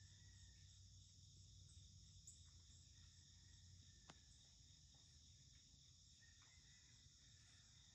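Faint, steady insect chorus of the kind crickets make, with one sharp click about four seconds in.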